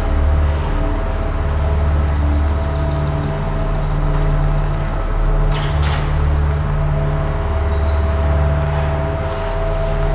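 Dense abstract drone soundscape: a deep low hum that swells and drops every second or two under steady higher tones and a wash of hiss. About five and a half seconds in, two quick falling sweeps cut through.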